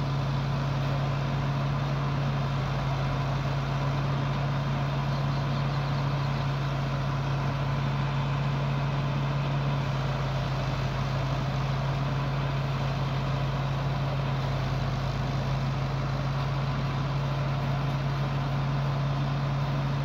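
Tractor engine running steadily under load, driving a rice thresher that separates the grain and blows out the straw: one even, unchanging machine drone.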